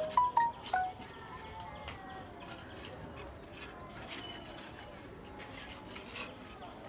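Repeated rough scraping strokes, with three or four short, loud, ringing notes in the first second.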